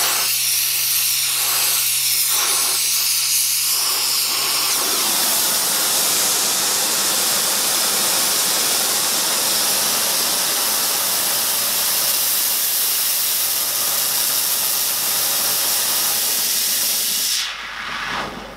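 Gas torch flame hissing steadily as it heats a clamped locomotive frame plate to relieve stress and straighten it, cutting off suddenly near the end when the torch is shut off.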